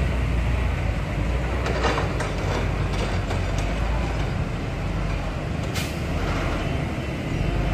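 Heavy diesel engine of a loaded dump truck running at low speed as it moves over soft earth, a steady low rumble. A few light clanks come about two seconds in, and a single sharp knock about three-quarters of the way through.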